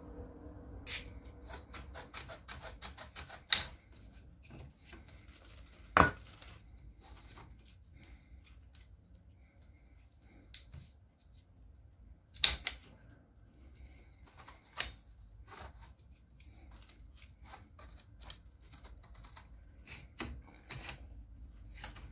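Plastic brake parts on a Bebe Mobile pram's rear axle clicking and knocking as they are handled and fitted together: many light clicks with a few sharper knocks.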